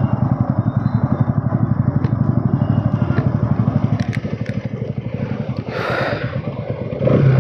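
Bajaj Pulsar NS200's single-cylinder four-stroke engine idling with an even, fast pulse through its stock exhaust, easing off a little after about four seconds. There is a brief hiss about six seconds in.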